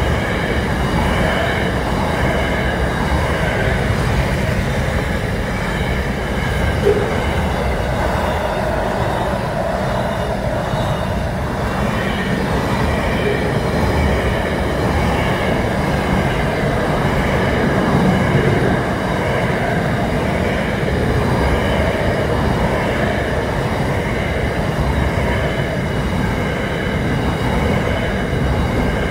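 Double-stacked container freight train rolling past at a level crossing: a steady, loud rumble of wheels on rail, with steady high tones ringing above it throughout.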